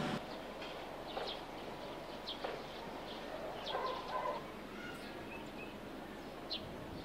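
Faint outdoor ambience with a few short, high bird chirps scattered through it and a brief call from a domestic fowl about four seconds in.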